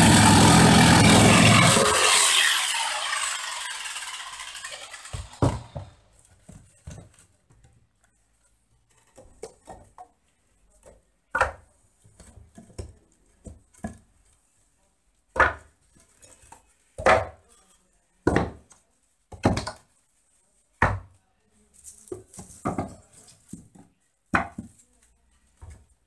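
DeWalt jigsaw running through a wooden pallet board, then switched off about two seconds in and winding down. After that come scattered single wooden knocks and clunks as loose pallet boards are handled and set down.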